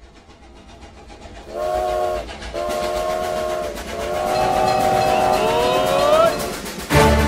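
Train sound effect: the rumble and clatter of a train grows louder, then a steam whistle sounds three blasts of several tones at once, each longer than the last, with a tone sliding upward near the end of the third. Upbeat music comes in just before the end.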